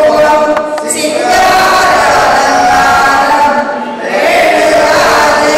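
A standing group of men and women singing together in slow, long-held notes, led by a man singing into a microphone; the singing breaks briefly for a breath a little past halfway.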